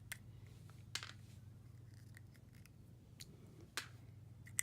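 Faint, scattered clicks and rustles of small plastic toys being handled, a few seconds apart, over a low steady hum.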